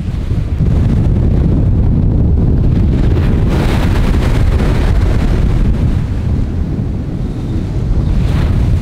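Strong wind buffeting the microphone in a heavy low rumble, over small waves washing and breaking against a sea wall.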